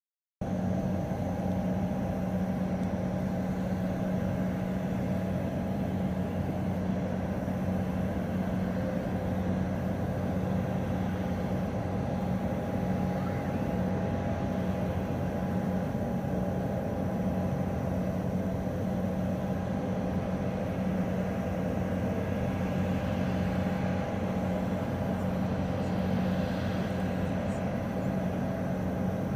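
A steady, low mechanical drone with a constant hum, like an engine running, holding an even level.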